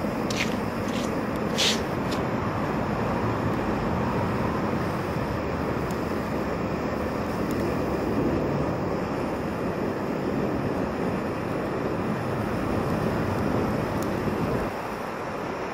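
High-powered gas torch burning steadily against a block: a constant rushing noise, with a few short clicks in the first two seconds. The level drops a little near the end.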